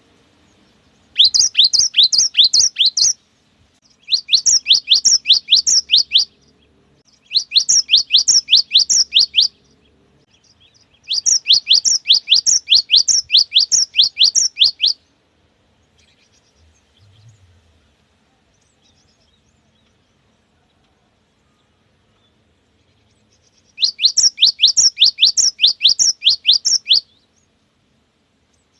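Cinereous tit (gelatik batu) singing its fast, repeated 'wucit wucit' song in five bursts. Each burst is a quick run of high, down-slurred notes, about three to four a second; the fourth burst is the longest, and a long pause comes before the last.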